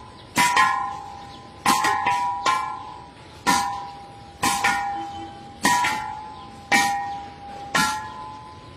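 Steel gas cylinder hung as a punching bag, punched about a dozen times, often in quick pairs; each punch sets it ringing with a clear metallic tone that fades over about a second.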